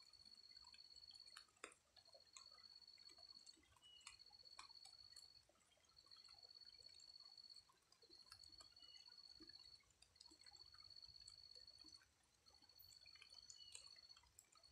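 Faint light rain dripping in scattered small ticks. Over it, a high, steady trill repeats in stretches of about a second and a half with short breaks.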